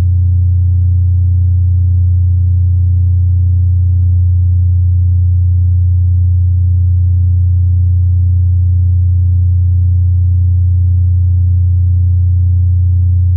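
A deep, steady drone tone that holds unchanged, with faint overtones above it: ambient drone music.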